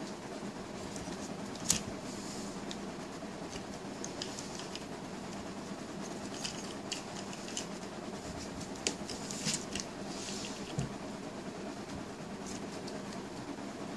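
Plastic parts of a Transformers Siege Ratchet action figure clicking as it is twisted and folded by hand. There is one sharp click about two seconds in, then scattered lighter clicks in the second half, over a steady faint background hiss.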